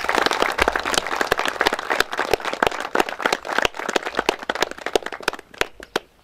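A small seated audience applauding, many hands clapping at once, thinning out to a few last separate claps near the end.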